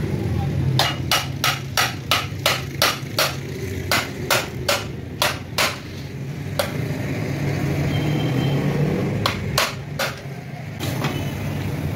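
A quick series of sharp metal taps, about three a second for some five seconds, then a few more near the ten-second mark, made by working on a small 70cc motorcycle engine's aluminium crankcase while its gearbox parts are fitted.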